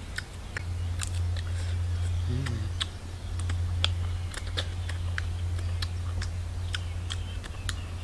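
Mouth smacking and wet clicks of a person eating wild honeycomb and licking his fingers, several small clicks a second, with a brief low "mm"-like voice sound about two and a half seconds in, over a steady low hum.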